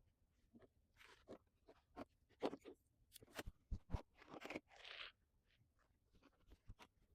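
Faint, scattered clicks, crunches and short rustles of fabric being handled and cut.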